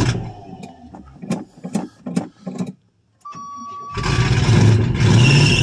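Old 1985 Chevrolet Suburban engine stumbling and dying in a string of irregular coughs, running rough and not on all cylinders. Then the dashboard warning buzzer sounds, the starter cranks about four seconds in, and the engine catches and runs a second later.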